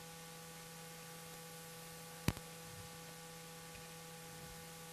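Faint steady electrical hum with several fixed tones over a light hiss, broken once by a single sharp click a little over two seconds in.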